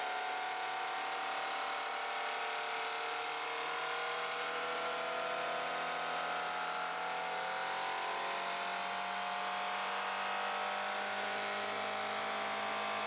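Overhead-cam engine running at very high revs, a steady mechanical whine made of several tones that rises slowly in pitch.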